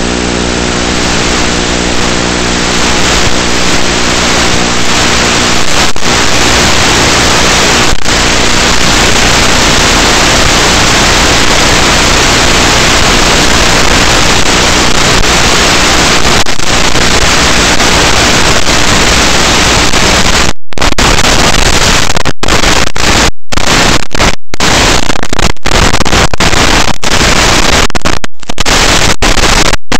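Loud, steady hiss of static from an analog FPV video link's audio channel, with brief sudden dropouts to silence several times in the last ten seconds. A humming tone fades away under the hiss over the first few seconds.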